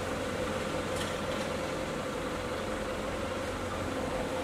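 Diesel engine driving a concrete block machine's hydraulic pump, running steadily at an even pace, with a steady hum and a steady mid-pitched tone over it.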